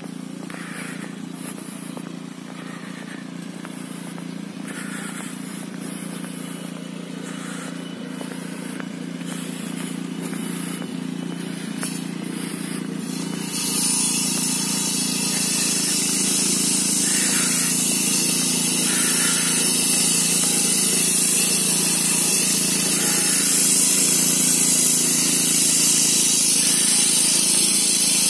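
A steady low machine hum with a hiss over it; about halfway through, the hiss jumps sharply louder and stays up.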